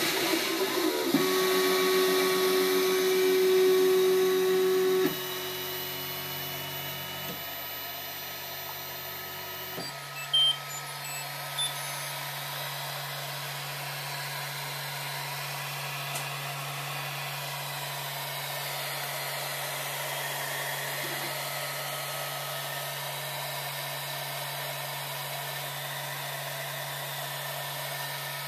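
MakerBot Replicator 2 3D printer running, its stepper motors whining in steady tones as it prints the final layers. About five seconds in the motor tones change and drop in level, and around ten seconds in they stop with a couple of short knocks, leaving a steady low fan hum.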